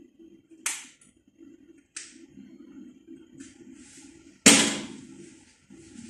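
Metal tongs knocking against a frying pan as food sautés. There are two sharp clicks in the first two seconds, then a loud ringing clang about four and a half seconds in, with a sizzling hiss over the last few seconds.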